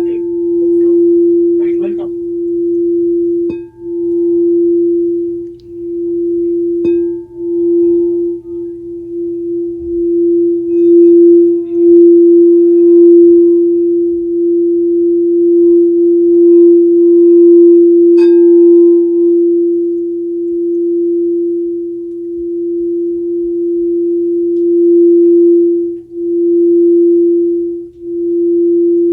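Singing bowl sounding one steady sustained tone that swells and dips in loudness, with a few faint higher pings over it.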